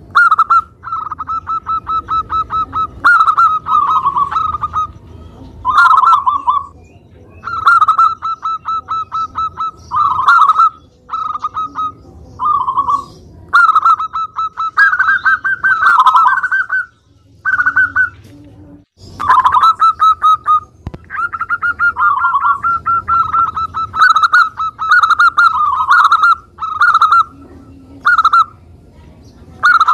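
Zebra dove (perkutut) singing in full voice: about a dozen phrases of rapid staccato cooing notes, each lasting one to three seconds, with short pauses between them.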